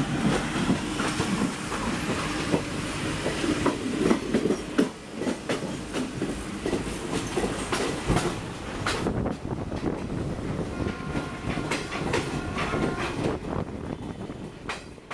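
Passenger express train running at speed, heard from beside a moving coach: a steady rumble and rush of air with the clickety-clack of wheels over rail joints. Fades out near the end.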